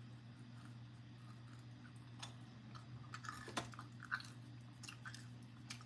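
A person chewing a stick-shaped snack close to the microphone: soft crisp crunches start about two seconds in, over a steady low hum.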